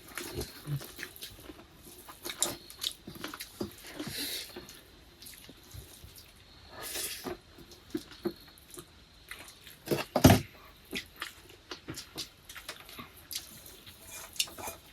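Eating sounds: mouths chewing and smacking over rice and curry eaten by hand, with scattered small clicks, and one louder knock about ten seconds in.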